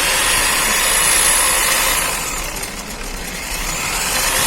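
Bosch electric diamond core drill running and cutting into concrete, a steady motor and grinding noise that eases slightly about halfway through, then picks up again.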